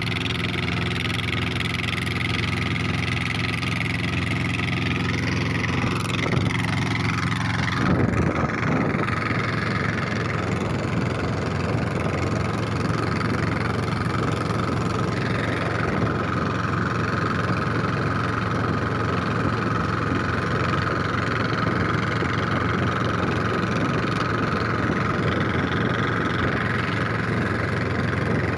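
Upright two-cylinder 'dompeng' diesel boat engine running steadily at speed, mixed with water and wind noise. About eight seconds in, the even engine note gives way to a rougher, noisier rush that then holds steady.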